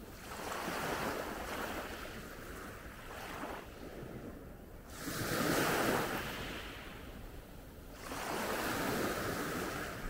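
Calm Adriatic Sea waves washing onto the pebble shore of Zlatni Rat beach, swelling and falling back four times, the loudest about halfway through.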